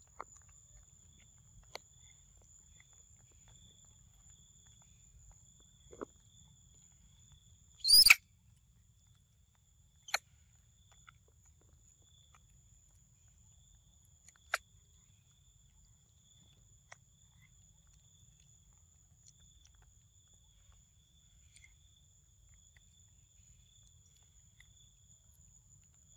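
Quiet forest ambience with a steady high-pitched insect drone. One brief, loud, sharp sound comes about eight seconds in, and a few fainter sharp ticks follow a few seconds later.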